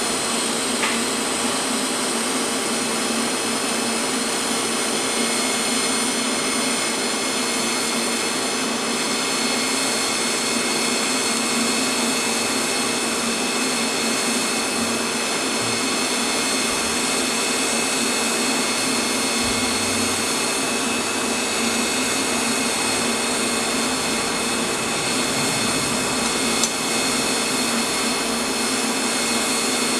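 TIG welding arc burning steadily, a constant hiss with a steady high whine over it and a brief tick near the end.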